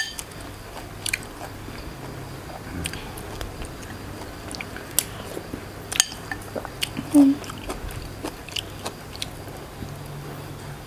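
Close-up eating sounds: chewing and biting, with scattered sharp clicks of metal spoons against a ceramic soup bowl.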